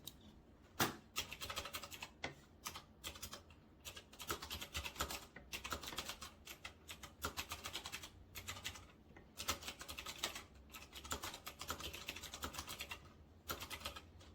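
Typing on an RK Royal Kludge S108 mechanical keyboard with clicky blue switches: fast runs of sharp, very clicky keystrokes broken by a few short pauses.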